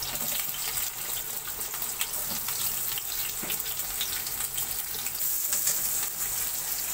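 Chopped onions sizzling in hot oil in a steel kadhai: a steady hiss with many small crackles and pops as they fry.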